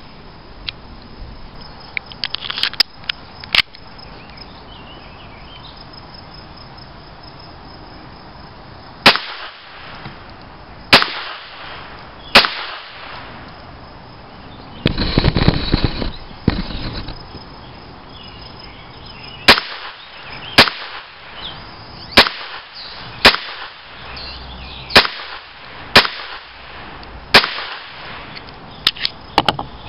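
A Walther P22 .22 LR pistol being fired shot by shot, in sharp, separate cracks. There is a quick cluster of shots in the first few seconds, then a steady string of shots about one to one and a half seconds apart, broken by a two-second rush of noise about halfway through.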